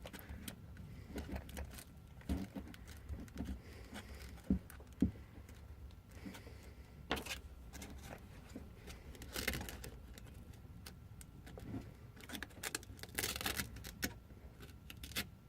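Handling noises as a sanding sheet is lined up and pressed onto the hook-and-loop pad of a Bosch PSM 100A palm sander: irregular light taps, clicks and short papery rustles, with a few louder scrapes in the second half. The sander is not running.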